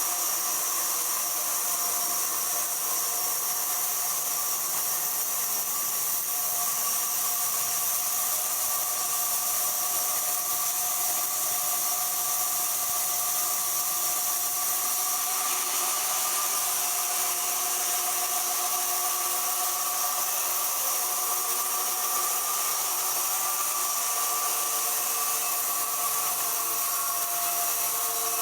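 Sawmill machinery running steadily, with a constant whine over a rushing noise.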